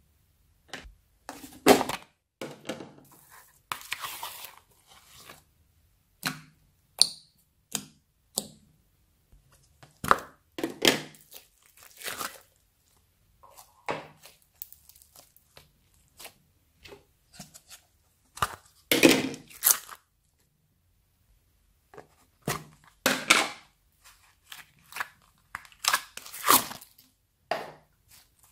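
Handfuls of slime being pressed, poked and squeezed by hand, giving short bursts of crackling and popping at irregular intervals with quiet gaps between them. The loudest burst comes about two-thirds of the way through.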